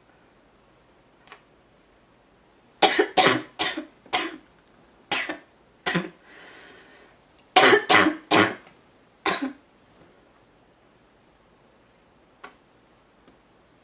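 A woman with a sick cough coughing in two fits of several coughs each, the first starting a few seconds in and the second about eight seconds in, with an audible in-breath between them.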